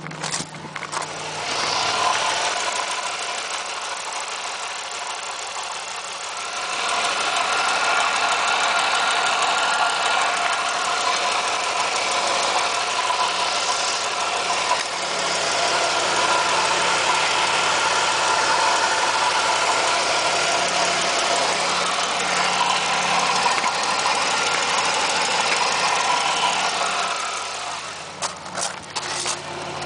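1997 Pontiac Firebird's 3.8-litre V6 running with a ticking noise whose cause is not known: an exhaust leak, a valve or piston slap are all suspected. It gets louder about seven seconds in and drops back near the end.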